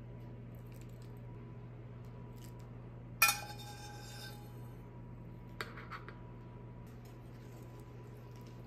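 A metal spoon clinks against a stainless steel pan once, a sharp ringing clink about three seconds in, followed by a few lighter metal taps around six seconds, over a steady low hum.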